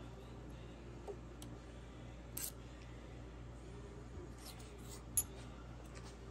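A few faint, short metallic clicks of calipers and a thin steel fishtail gauge being handled against a rifle receiver, the sharpest near the end, over a low steady hum.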